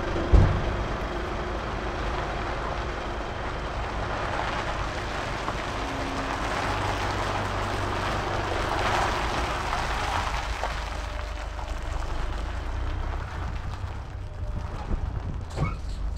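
Scania truck with an open, straight-through exhaust pulling away and turning, the engine a steady low drone under wind noise on a microphone mounted on the trailer side. One sharp knock just after the start.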